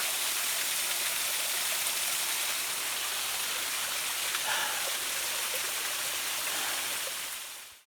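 Small waterfall splashing steadily into a rock pool, an even rushing hiss. It fades out just before the end.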